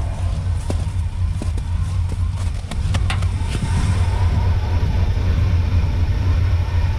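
1978 Suburban's engine idling after a cold start, a steady low rumble that gets louder and harsher about four seconds in, heard from down in the front wheel well.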